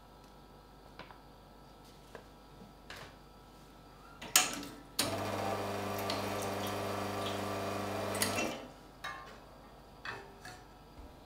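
A sharp clack, then the Lelit Bianca espresso machine's rotary pump runs for about three and a half seconds, a steady hum over water splashing from the group head onto the drip tray: a group-head flush. It cuts off suddenly and light taps and clicks follow.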